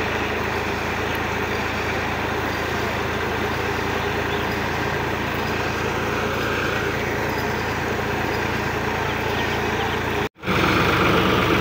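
Tractor diesel engine running steadily, belt-driving a tubewell water pump, with water gushing from the discharge pipe. The sound drops out briefly about ten seconds in, then carries on a little louder.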